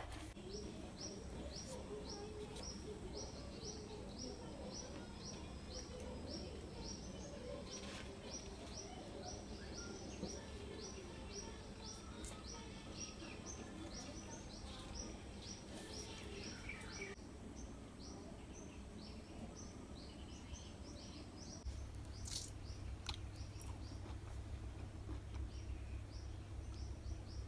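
A small animal outside chirping a short high note over and over, about three times a second, fading after about seventeen seconds, over a steady low hum.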